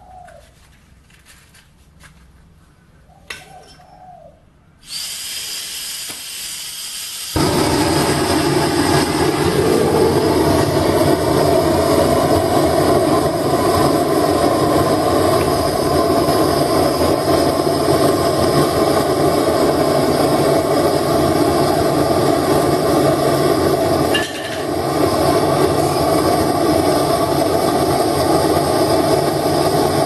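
A gas torch starts hissing about five seconds in as its valve is opened. It lights about seven seconds in and then burns with a loud, steady rush, firing into a small tin-can furnace, with one brief dip about 24 seconds in. A dove coos twice in the first few seconds.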